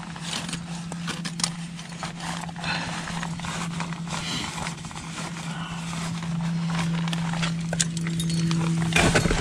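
Climbing gear at work: irregular metallic clicks and scrapes of crampon points on granite and carabiners and rope against rock, over a steady low hum.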